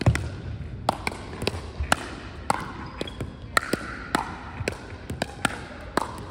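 Pickleball paddles striking a plastic pickleball back and forth in a quick rally, with the ball bouncing on a hardwood gym floor: a run of sharp pops, about two a second.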